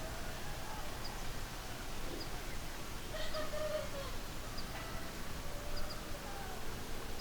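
Chickens calling faintly over a steady background hiss, with one longer drawn-out call about three seconds in. Short high chirps come at intervals.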